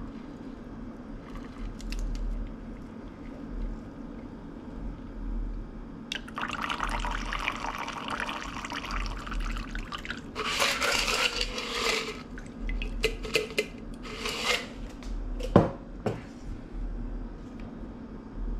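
A stirred cocktail strained from a metal mixing tin through a Hawthorne strainer into a coupe glass: liquid pouring and dripping, with ice shifting in the tin. It is followed by a few clinks of barware and one sharp knock late on.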